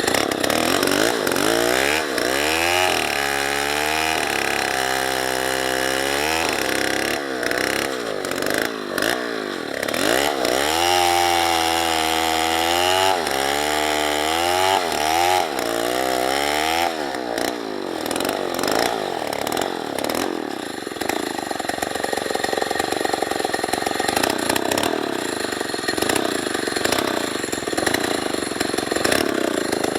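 Small two-stroke chainsaw engine revving up and down repeatedly through the first half, then running at a steadier pitch for the rest.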